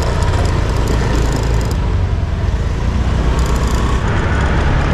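Motorbike running while being ridden along a road, a steady low rumble of engine and road noise.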